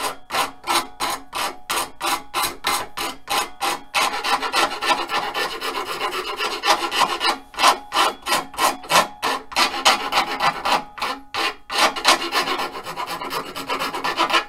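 Hand file rasping back and forth on the end of a wooden dowel drumstick blank, rounding down and thinning the tip. Quick, even strokes come about three to four a second. They run together into faster, continuous filing for a few seconds around the middle and again near the end.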